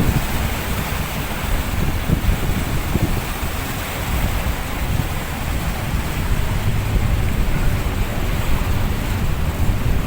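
Strong sea wind buffeting the microphone in a steady low rumble, over the rushing noise of surf breaking on the shore.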